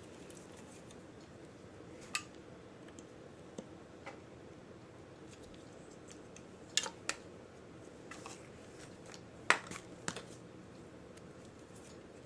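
Small metal parts being handled: a few scattered light clicks and taps from a Zippo lighter and the tools for refilling it, the sharpest about nine and a half seconds in, over a faint steady hiss.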